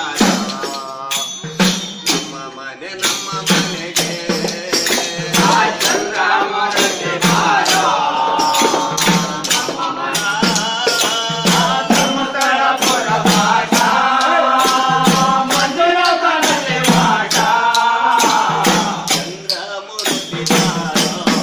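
A village bhajan: voices singing a devotional song together, with hand drums and jingling hand percussion keeping a steady beat of about two to three strikes a second.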